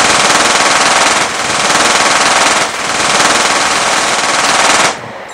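Sustained rapid automatic machine-gun fire, one continuous burst of about five seconds with two brief dips, cutting off abruptly near the end.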